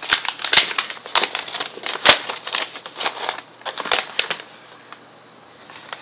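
Paper rustling and crinkling as a folded printed document is pulled out of an envelope and opened out by hand, in quick irregular crackles that die away about four and a half seconds in.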